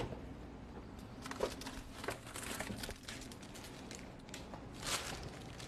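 Faint rustling and crinkling of a plastic piping bag being handled and taken from a refrigerator, with a few small clicks and knocks and a slightly louder rustle about five seconds in.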